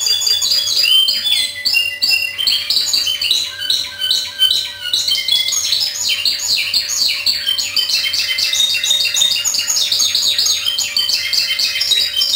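Spanish timbrado canary singing a long, high-pitched run of short, rapidly repeated notes that change in pitch from phrase to phrase, without a pause. The song is of the type labelled timbrado discontinuo.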